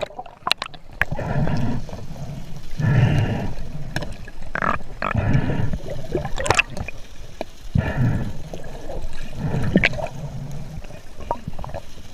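Water sloshing and gurgling in uneven swells, with a few sharp clicks.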